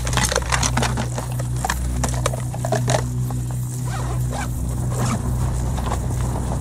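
A hiking backpack and its contents being handled: fabric rustling, with many short clicks and knocks as plastic bottles and tubes are pulled out and stuffed back in. Under it runs background music with low sustained notes.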